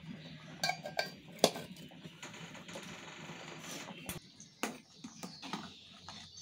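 Sharp metal clicks and clinks of a small tiffin box's lid being pressed shut, a few quick ones in the first second and a half and another single knock later on.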